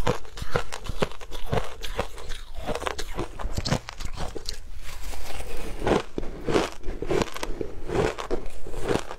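Shaved ice being bitten and chewed close to a clip-on microphone: runs of crisp, rapid crunches, thinning briefly around the middle, then dense again.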